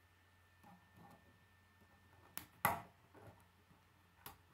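Plastic K'nex rods and connectors being handled and snapped together: a few soft taps, then a pair of sharp clicks about two and a half seconds in, the second the loudest, and one more click near the end.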